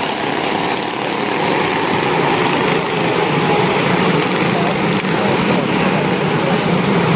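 A pack of quarter midget race cars lapping the track, their small single-cylinder engines buzzing together, a little louder in the second half.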